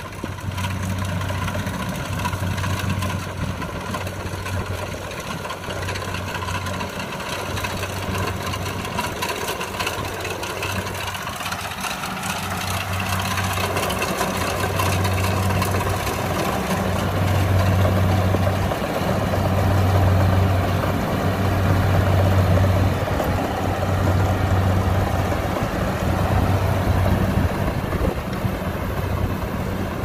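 Kubota DC70 rice combine harvester's diesel engine and threshing gear running as it cuts flattened rice, with a low hum that pulses on and off every second or two. It gets louder about halfway through as the machine comes close.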